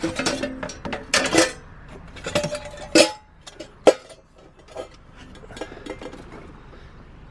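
Small copper pans handled and knocked together, clanking several times with short metallic ringing; the sharpest knocks come about three and four seconds in.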